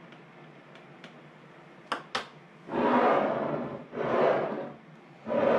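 Glass mason jars filled with raw-packed sausage being handled on a countertop: two light clinks about two seconds in, then three longer rubbing noises of about a second each as the jars are moved.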